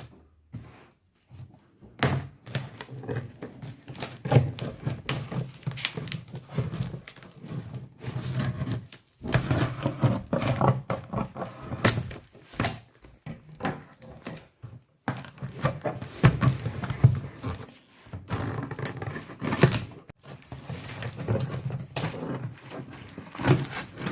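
A courier parcel being opened and unpacked by hand: irregular thumps and knocks of handling, with rustling and scraping of the cardboard and packaging.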